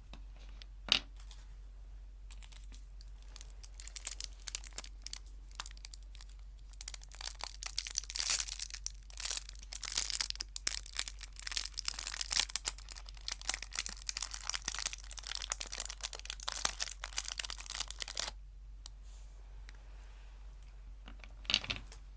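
A candy wrapper being crinkled and torn open by hand. Scattered crackles build into a long stretch of dense crinkling that stops suddenly about 18 seconds in. A single sharp click comes about a second in and a short knock near the end.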